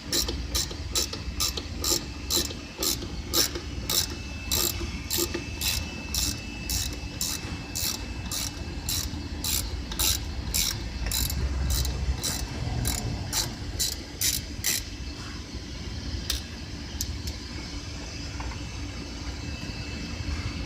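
Hand ratchet wrench clicking as it loosens the bolt on an AC line fitting, a steady run of about two to three clicks a second that stops about fifteen seconds in.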